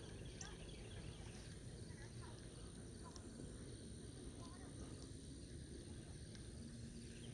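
Quiet outdoor ambience: a low wind rumble on the microphone with a few faint, scattered bird chirps.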